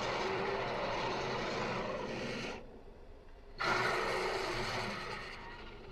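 Dinosaur roar sound effects: a noisy growling roar of about three seconds, then after a one-second pause a second, shorter roar that fades out.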